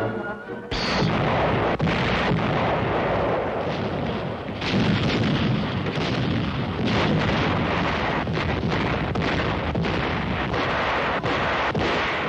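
Heavy naval gunfire from a battleship's 16-inch guns, starting abruptly under a second in: a dense barrage of sharp blasts over a continuous heavy rumble of firing and shell bursts.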